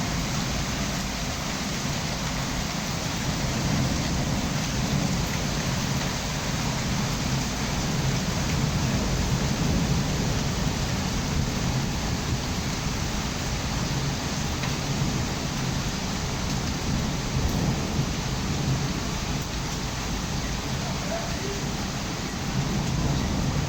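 Rain falling steadily: an even hiss with a low rumble underneath that does not let up.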